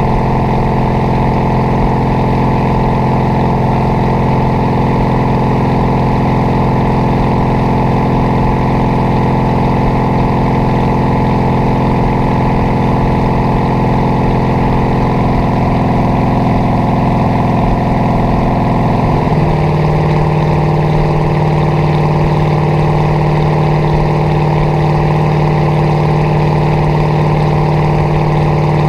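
Inboard engine of a 1976 ski boat running steadily under way, its note changing abruptly about two-thirds of the way through, with wind on the microphone.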